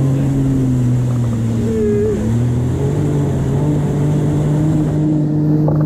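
Jet ski engine running at speed, a steady drone that dips in pitch about two seconds in and then picks up again, over the rush of water and spray against the hull.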